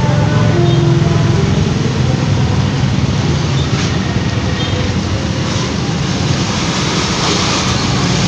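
Road traffic: engines of vehicles idling and passing close by. A low engine rumble is strongest in the first couple of seconds and then eases.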